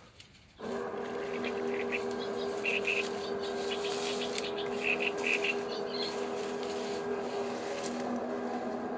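Electric motors of a radio-controlled fishing bait boat running with a steady hum. The hum starts suddenly about half a second in.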